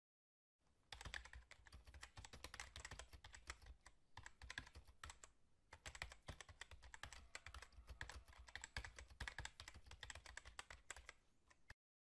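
Rapid computer-keyboard typing clicks, a typing sound effect. It starts about half a second in and cuts off suddenly just before the end.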